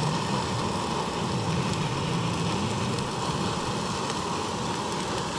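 Backpacking gas canister stove burning steadily under a pot, a constant even roar of the burner flame.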